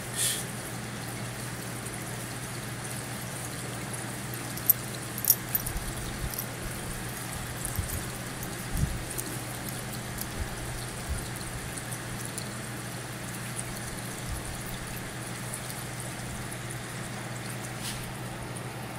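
Quiet room tone: a steady low hum under a faint hiss, with a few small clicks and taps.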